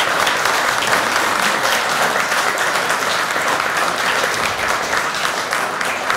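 Steady applause from a small roomful of people, many hands clapping at once.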